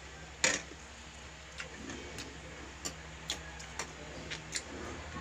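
Eating sounds: irregular sharp clicks and smacks, the loudest about half a second in, over a low steady hum.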